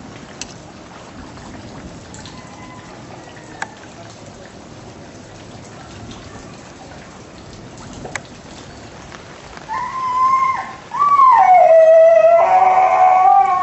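Steady hiss of water, with a few faint clicks. Near the end a loud pitched call sounds twice: a short one, then a longer one that rises, falls and holds. Its source is not clear.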